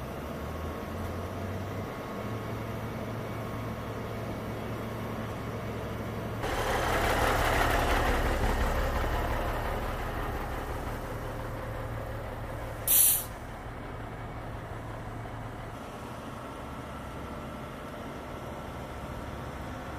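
Live-fire aircraft firefighting drill: a steady low engine-like hum, with a loud rush of noise that starts suddenly about six seconds in and fades over the next few seconds, and a short sharp hiss about thirteen seconds in.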